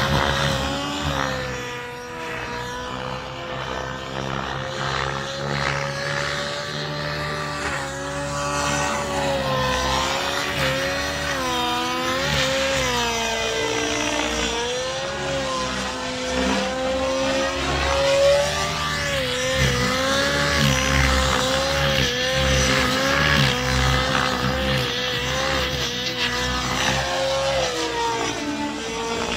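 Nitro RC helicopter's OS 91HZ glow engine running in flight, a steady high-pitched engine note that wavers slightly up and down through the manoeuvres.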